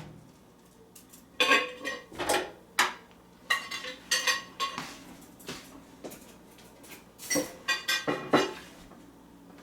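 Metal kitchenware and dishes being picked up and set down, clinking and clattering about a dozen times at an uneven pace, some strikes ringing briefly.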